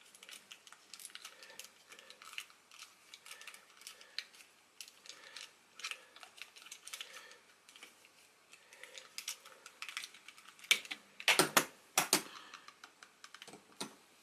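Small metal screwdriver clicking and scraping against a tiny screw and the hard plastic of an action figure's head as it tries to seat in the slot: a run of light, irregular clicks, with a few louder knocks near the end.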